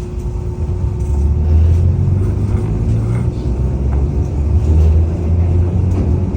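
Enoden electric train running between stations, heard from inside the car: a loud, steady low rumble with a constant hum, swelling and easing as it goes.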